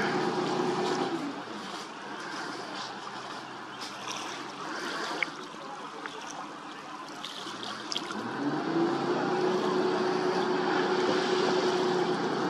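Tug's engine running under load while towing. It eases off about a second in, then rises back to a steady pitch around eight seconds in.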